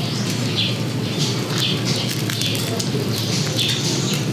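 Crisp, crackly crunching of deep-fried crispy pata (pork knuckle) skin being chewed and pulled apart, a short crunch repeating every third to half second.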